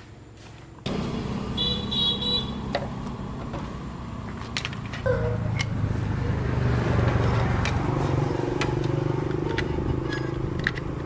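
An engine starts running about a second in and keeps a steady low hum, growing louder about five seconds in, with light clicks and taps over it.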